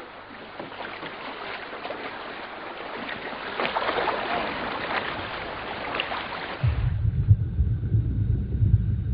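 Sea water splashing and sloshing as swimmers jump off a boat and swim, growing louder partway through. About two-thirds of the way in it cuts abruptly to a low underwater rumble.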